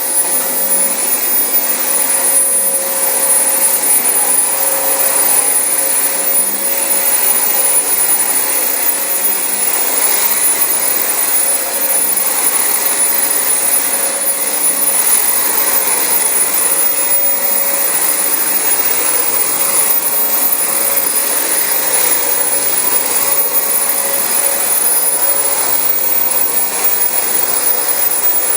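Dyson DC25 bagless upright vacuum running at full speed while it is pushed over carpet: a steady, loud motor whine with a high-pitched tone on top and a constant rush of suction air.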